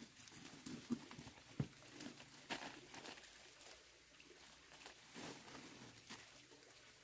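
Clear plastic sleeves around potted strawberry seedlings crinkling and rustling as the plants are lifted out of a cardboard box and set down, with two knocks in the first two seconds.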